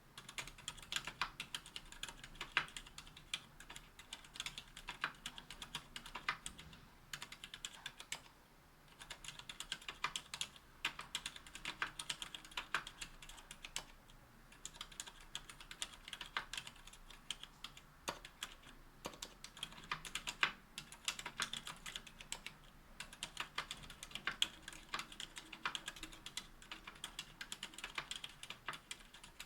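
Typing on an aluminium 60% mechanical keyboard with Cherry MX Silent Red linear switches and GMK keycaps: a fast, continuous run of keystrokes with two brief pauses.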